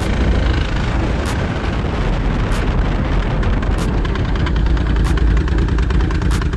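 Heavy wind buffeting on a helmet-mounted microphone while riding a Yamaha R1, its crossplane inline-four engine running underneath the wind rumble.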